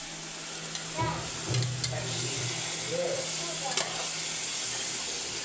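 Food sizzling as it fries in a pan, with a steady hiss and a spoon stirring and clicking against the pan a few times.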